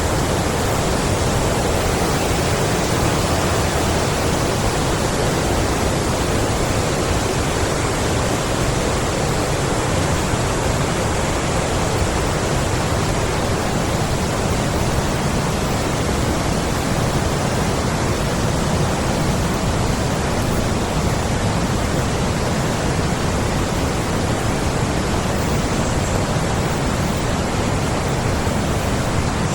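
A large forest stream rushing steadily, a loud, even wash of running water.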